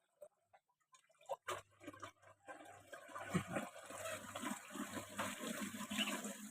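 Water running or pouring, starting about a second and a half in after a few light clicks and growing louder, with a low steady hum beneath it.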